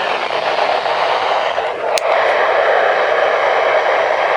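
Steady static hiss from a weather radio receiving a weak, noisy signal, with one sharp click about two seconds in.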